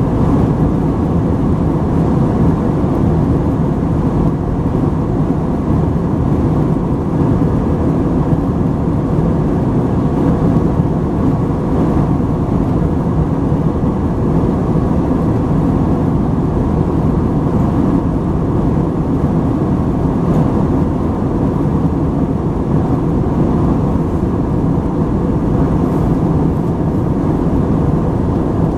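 Steady, loud low rumble of an Airbus A321-231 airliner's cabin, heard from a window seat beside the wing: the IAE V2500 turbofan engines running at climb power after takeoff, with airflow noise.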